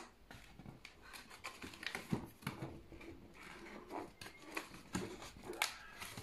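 Cardboard and paper being handled and unfolded: faint, irregular rustles and light taps.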